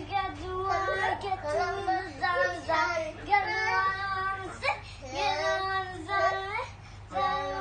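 A child singing a song, held notes in short phrases with a brief pause near the end.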